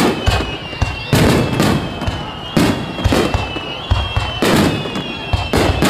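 Aerial firework shells bursting in rapid succession, about two loud bangs a second, with a thin high wavering tone running above them.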